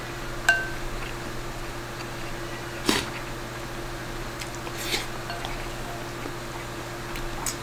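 Wooden spoon scooping and tapping in a bowl of rice and egg, with soft wet chewing sounds of eating. A few sharp taps stand out, the loudest about three seconds in, over a steady low hum.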